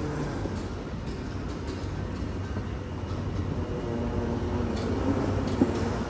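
Steady low rumble and hum of airport terminal background noise, with one short click near the end.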